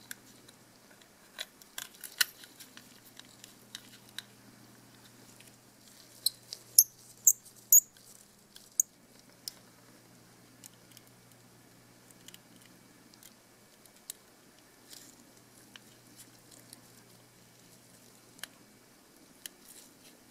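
Small plastic and metal parts of a Canon PowerShot A4000, its lens unit and main circuit board, clicking and ticking as gloved hands fit them together. A few sharp clicks come about two seconds in, then a louder quick run of clicks from about six to nine seconds in, with scattered light ticks after, over a faint steady hum.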